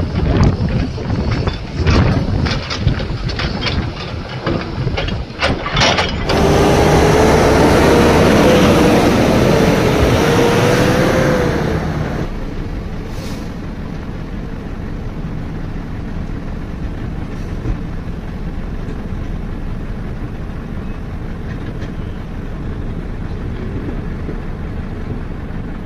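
Rock knocking and clattering into a Volvo FMX tipper truck's steel dump body, then about six seconds in the loaded truck's diesel engine runs up loudly as it pulls away, its pitch slowly rising. About twelve seconds in this drops to a quieter, steady engine rumble as the truck drives off.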